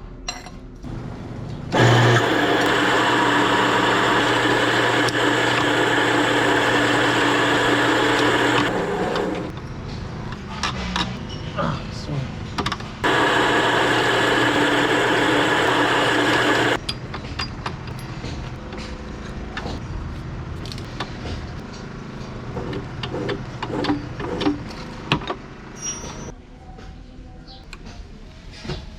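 An electric motor running steadily in two bursts, about seven and four seconds long, each starting and stopping abruptly. Lighter knocks and clatter come between and after the bursts.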